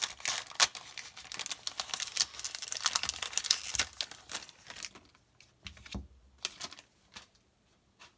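A trading-card booster pack wrapper being torn open and crinkled, a dense crackling for about the first five seconds, then only a few soft rustles and taps.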